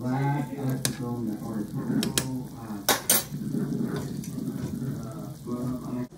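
A pot of chicken thigh soup at a rolling boil, with a metal utensil clinking against the pot several times; the loudest clinks come as a pair about three seconds in.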